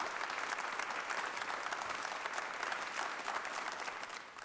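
Audience applauding, with dense, even clapping that dies away near the end.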